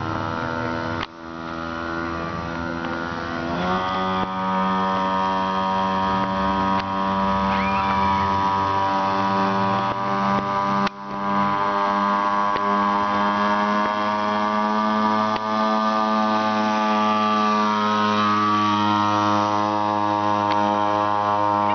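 Small mini-bike engine running at a steady speed, its note stepping up a few seconds in and dropping away near the end.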